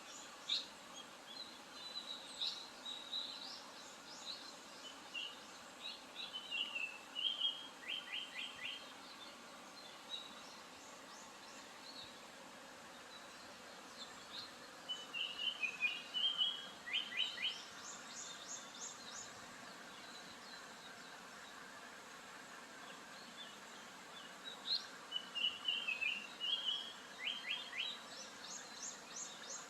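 Japanese paradise flycatcher singing: three song phrases about ten seconds apart, each a short warble followed by a quick run of repeated notes, over a steady background hiss.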